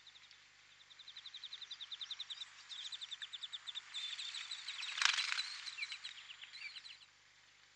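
European greenfinch nestlings begging at the nest during a feed, a rapid run of high chirps, about eight a second, that stops abruptly near the end. A brief crackle about five seconds in is the loudest sound.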